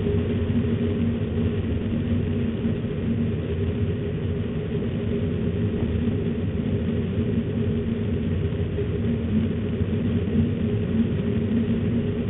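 Steady low rumble with a constant low hum running under it; no bird calls stand out.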